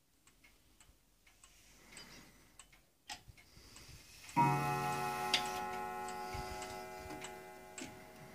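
Gustav Becker 'Freischwinger' wall clock from about 1900 ticking faintly, then striking once on the half hour about four seconds in. The note rings on and slowly fades while the ticking carries on.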